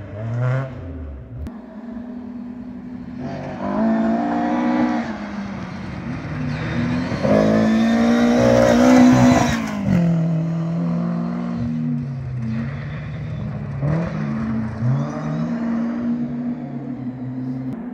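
Small-engined rally car driving at speed on a gravel forest stage: the engine revs hard as it approaches, is loudest as it passes about nine seconds in, then pulls away with the revs climbing and dropping through gear changes.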